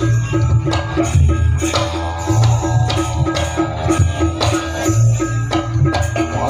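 Live janger gamelan ensemble playing: drums and a pitched percussion note repeating evenly about three times a second over a low steady drone.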